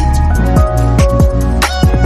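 Background electronic music with a steady beat: deep kick drums that drop in pitch, sharp percussion hits and sustained synth chords.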